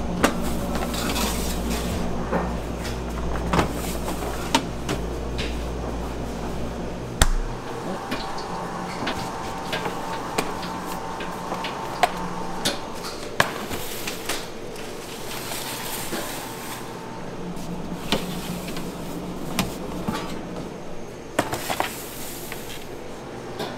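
Scattered sharp knocks and clatter of bakery pans and tools being handled, over a low machine hum that cuts off about seven seconds in.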